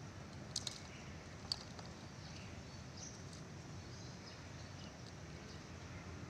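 A few light metallic clicks from a chainsaw's bar and chain being handled and fitted, two close together about half a second in and one more near a second and a half, over a steady low hum.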